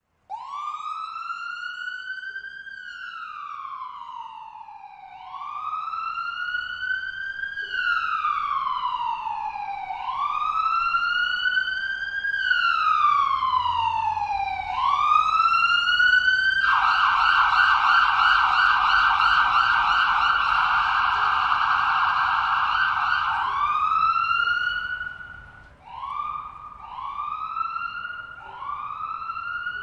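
Ambulance siren in its wail, each cycle rising quickly and then falling slowly, growing louder over the first half. About two-thirds of the way through it switches to a fast warble for several seconds. It then goes back to shorter rising wails.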